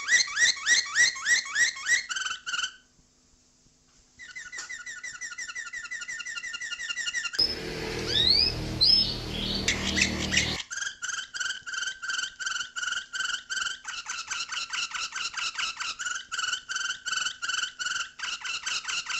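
Songbird song spliced from several recordings: fast trills of repeated notes, several a second, broken by a short pause about three seconds in and by a noisier stretch with rising whistles in the middle.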